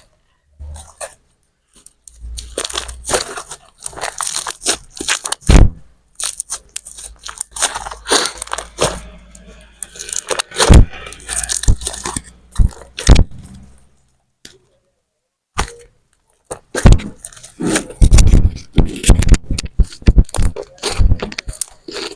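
Homemade slime being squeezed and worked close to the microphone, giving irregular runs of sharp clicks and crackling pops, with short pauses between handfuls.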